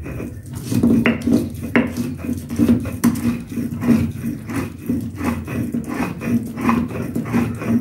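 Stone grinding slab and hand stone (shil-nora) grinding tulsi leaves, ginger and black pepper into a wet paste: stone rubbing and knocking on stone in quick back-and-forth strokes, about three a second.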